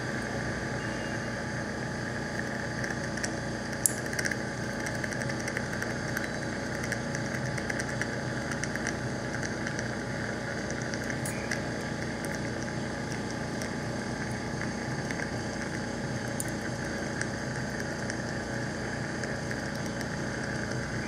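Dental surgical suction running steadily, a continuous hiss over a low hum, with a few short clicks.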